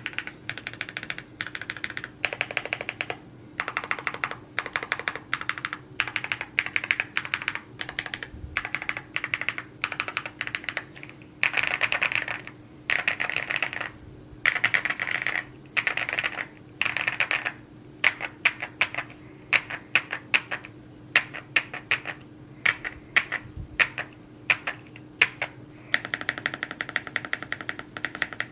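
Typing on an Evo80 mechanical keyboard: quick runs of key clacks with short pauses between them. Past the middle they turn into louder, more widely spaced single key strikes.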